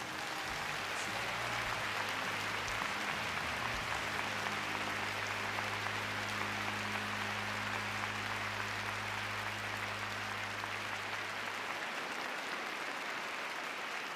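Arena audience applauding in a sustained dense ovation at the end of a figure-skating program. A low steady hum runs underneath and stops about twelve seconds in.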